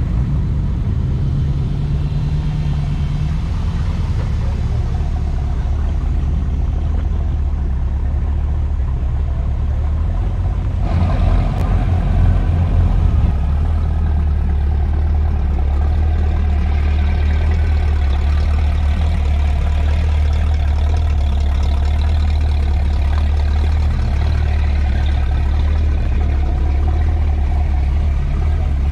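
Hot rods and street rods driving slowly past, their engines running at low revs. About eleven seconds in, a louder car comes through and its engine sound swells briefly.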